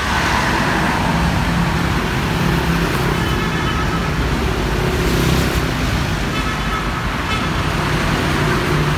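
Steady street traffic: vehicle engines running and passing, with faint horn toots a couple of times in the distance.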